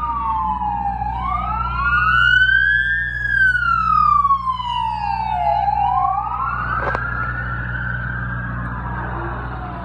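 A wailing siren, its pitch sliding slowly up and down over a few seconds, with two siren tones overlapping, over a steady low rumble.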